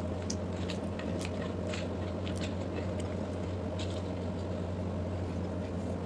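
A steady low machine hum, with scattered faint crackles and clicks as gloved fingers pry seeds from a halved pomegranate.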